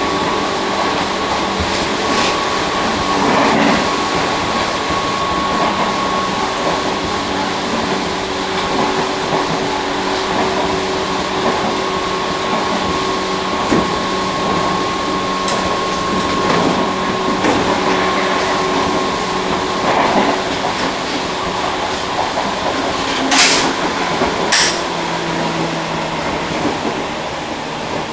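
Interior running noise of a Tobu 1800 series electric train car heard from its end vestibule: a steady rumble with faint hum tones, one of which stops about two-thirds of the way in. Two sharp knocks come near the end, a second or so apart.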